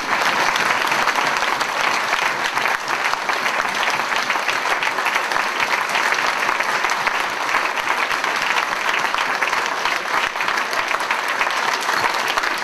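Audience applauding: dense, steady clapping from a full room.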